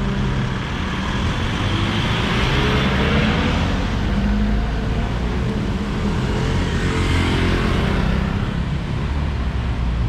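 Street traffic driving past close by: cars and a motorcycle go by one after another. The noise swells twice, about two seconds in and again around seven seconds, the second pass with a falling pitch as it goes by.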